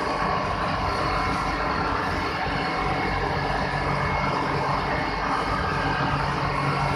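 Steady machinery din of a working sugar mill: a continuous rumbling noise with a few faint steady hum tones, without a break.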